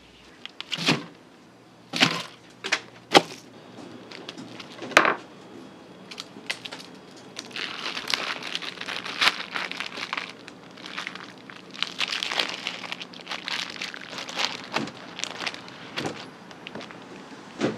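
Clear plastic packaging crinkling and rustling as it is pulled off a whole raw beef brisket, strongest through the middle of the stretch. Several sharp knocks come in the first few seconds.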